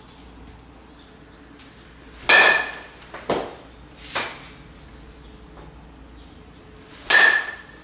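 A metal baseball bat striking a ball twice, about five seconds apart, each hit a sharp, briefly ringing ping. Two lighter knocks follow about a second and two seconds after the first hit.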